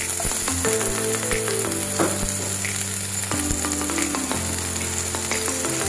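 Sliced onion, ginger and garlic sizzling steadily in a little cooking oil in a frying pan, with a few light clicks. Background music runs underneath.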